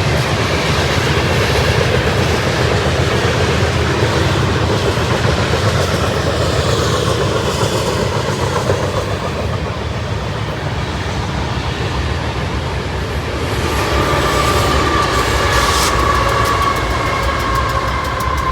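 A train passing with a steady heavy rumble. A high whine joins in during the last few seconds.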